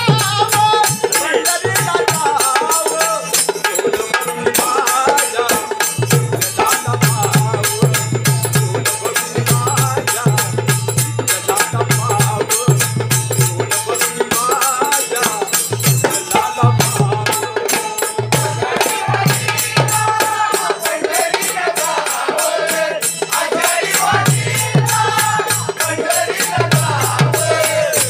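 Marathi devotional bhajan music: a fast, steady beat of small hand cymbals over a repeating drum pulse, with a wavering melody line running through it.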